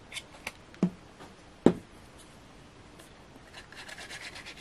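Two dull knocks about one and one and a half seconds in, the second the louder, as white cardstock and a glue bottle are handled on a cutting mat; then a quick faint crackling near the end as glue is squeezed from the bottle's nozzle onto the cardstock.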